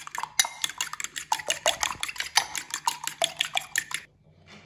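Metal fork clinking rapidly against a glass bowl while beating egg, several quick clinks a second. The clinking stops abruptly about four seconds in.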